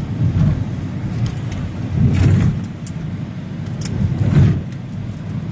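Road and wind noise of a vehicle travelling at highway speed, heard from inside it as a continuous low rumble that swells louder twice, about two and four seconds in.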